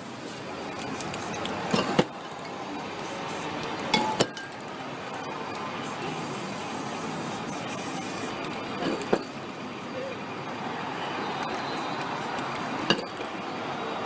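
Aerosol spray paint hissing steadily as it is sprayed, with about six sharp clicks or taps scattered through it.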